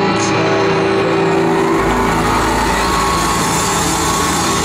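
A live rock band's last chord rings out for about a second and a half, then gives way to a crowd cheering and shouting as the song ends.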